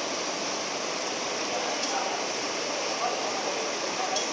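Steady hiss of heavy rain falling and running off.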